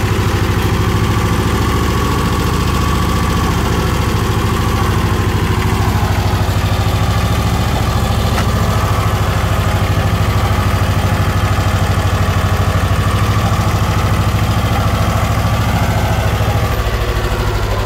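Tractor engine running steadily at an even speed, a loud, deep rumble that barely changes.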